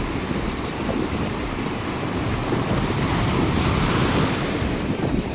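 Waves washing onto a shore, one swelling louder about three and a half seconds in, with wind rumbling on the microphone.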